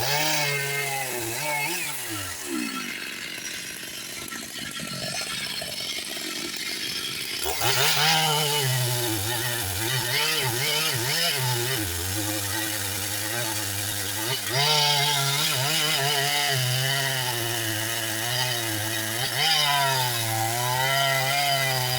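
Large Stihl chainsaw cutting into a big trembesi (rain tree) trunk, its engine pitch wavering under load. It eases off for a few seconds near the start, then bites in again about seven seconds in and runs hard, surging louder twice later on.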